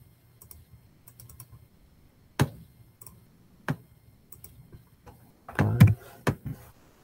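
Computer keyboard keys struck one at a time as a number is typed in, a few separate sharp clicks spread out. A short low voice-like sound comes about five and a half seconds in.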